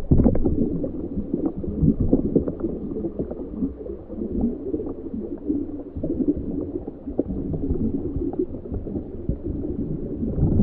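Underwater ambience as heard by a scuba diver: a dense, muffled churning and gurgling with frequent small pops and crackles, its sound mostly low and dull with almost no treble.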